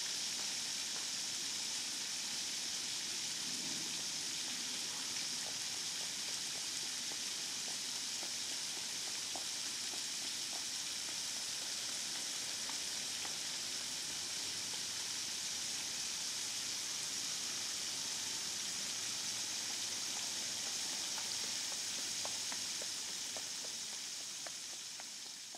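Steady rain falling on wet paving and leaves, an even hiss with scattered small drop ticks, fading out near the end.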